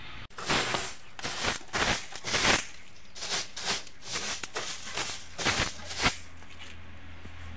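A stiff stick broom sweeping out a wooden box: about a dozen quick, scratchy brushing strokes against the wooden floor and walls. They stop about six seconds in.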